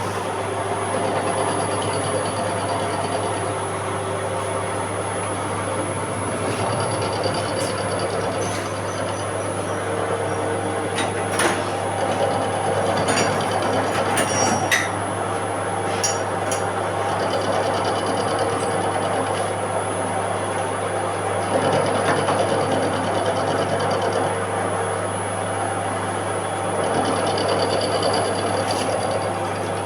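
Machine tool running while cutting a 316 stainless steel ring: a steady hum with intermittent high-pitched tones that come and go, and a few sharp clicks partway through.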